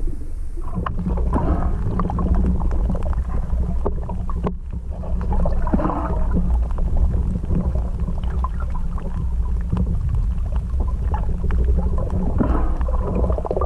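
Muffled underwater sound picked up by a submerged camera: a steady low rumble of moving water with bubbly gurgles and scattered small clicks.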